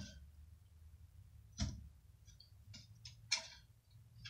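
Faint, irregular clicks and light knocks from an old shelf frame being handled on a table, with a duller knock about one and a half seconds in, over a faint low hum.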